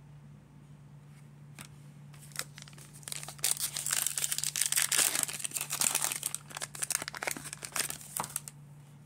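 Wrapper of a 2022 Donruss baseball card pack being torn open and crinkled: a few light clicks at first, then dense crinkling from about three seconds in, stopping shortly before the end. A faint steady low hum runs underneath.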